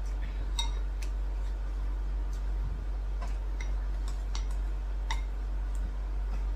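Cutlery clinking and tapping against dishes now and then while eating: about a dozen light clicks, with one ringing clink about half a second in. A steady low hum runs underneath.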